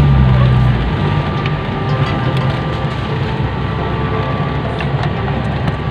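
Off-road vehicle's engine heard from inside the cab as it crawls along a rough plantation track. The engine revs unevenly, then settles to a steadier, quieter pull about a second in, with scattered clicks and rattles from the body and palm fronds scraping against the windscreen.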